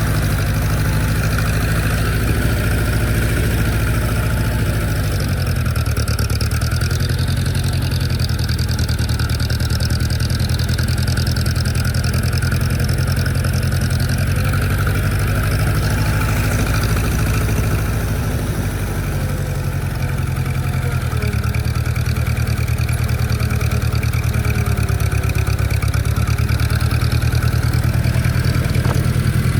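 Allis-Chalmers D17 farm tractor engine running steadily. Its pitch shifts about five seconds in and again past the two-thirds mark as the throttle or load changes.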